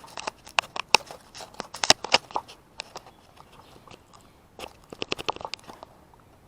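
Close handling noise: quick runs of sharp clicks and crackles as small plastic parts, a USB plug and cable, are fiddled with. One run fills the first three seconds and another comes about five seconds in.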